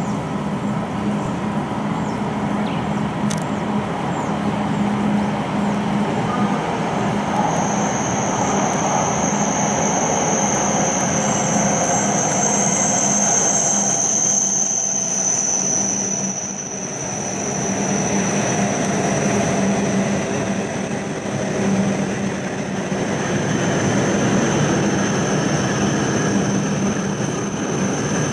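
E7 series Shinkansen train running past: a steady rush of wheel and air noise over a low hum, with a high, steady whine joining in about seven seconds in.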